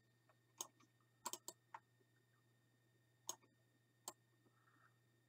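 Faint clicks of a computer mouse button, about seven of them, several in quick succession a little over a second in, over a low steady hum.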